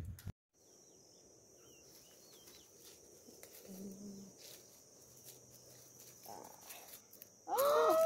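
Faint countryside ambience: a steady high-pitched insect drone with a few small bird chirps. About seven and a half seconds in, a loud, drawn-out human voice sets in and holds.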